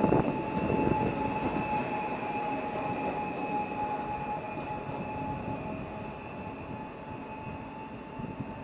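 PESA Elf electric multiple unit (class EN96) pulling away: a rumble of wheels on track with a couple of clatters at the start, and a steady whine over it, all fading as the train moves off.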